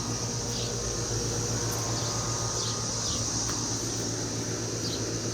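Residential central air conditioner outdoor condenser running, a steady low compressor hum with fan noise. Over it are a steady high buzz and short, falling high chirps every second or so.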